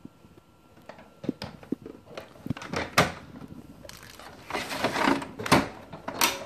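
Hands moving a doll around a plastic toy dollhouse: scattered light plastic clicks and knocks, with a few rustling swishes of handling.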